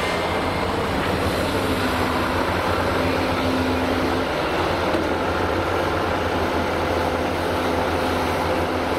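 Volvo EC480D L crawler excavator's diesel engine running steadily under load, with the hydraulics working as the machine swings and digs.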